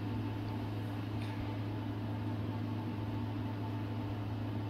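Steady low mechanical hum of a kitchen fan, with a faint sizzle of vegetables frying in a wok on high heat.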